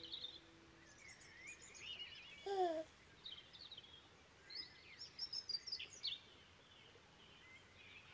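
Birdsong: small birds chirping and trilling. About two and a half seconds in there is a louder, short, falling call.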